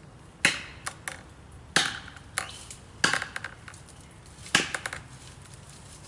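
A plastic felling wedge being struck four times, about once every second and a half, each hard blow followed by a couple of fainter knocks. The wedge is being driven into the back cut of a dead ash tree to tip it over.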